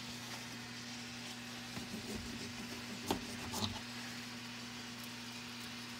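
Steady low electrical hum at mains frequency, with a few light knocks and taps around the middle.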